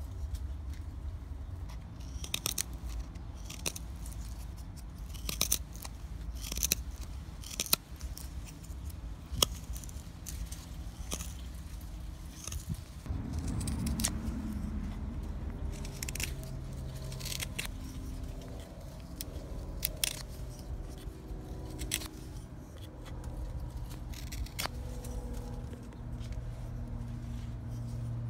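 A carbon-steel bushcraft knife with a Scandi grind shaving wood off the end of a peeled stick, carving it to a sharp point: a string of short, crisp slicing strokes at irregular intervals over a low steady rumble.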